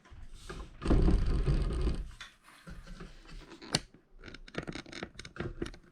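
Handling noise: a loud, muffled rustling thump about a second in, then a single sharp click and a run of small clicks and scrapes.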